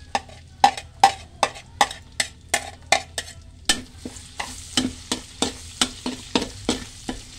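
Spatula scraping and knocking against a metal wok while chopped garlic and onions are stirred in hot oil, about three strokes a second. From about four seconds in, the oil sizzles steadily under the strokes as the garlic and onions begin to sauté.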